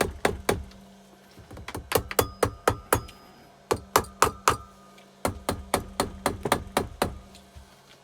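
Repeated sharp taps on the cylinder head of a Keeway TX125 engine, about four a second in several runs with short pauses between them, to break the stuck head free of the cylinder.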